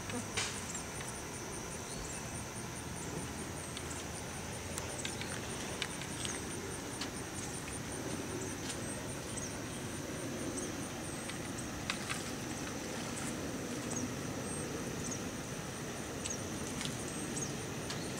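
Steady high insect chorus trilling, with a finely pulsing note above it, and a few light clicks scattered through.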